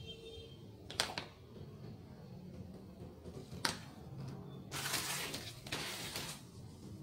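Two sharp plastic clicks as a blue sponge pad is fitted onto the white plastic head of a long-handled bathtub scrubber, followed near the end by two louder bursts of the sponge rubbing across a cardboard surface.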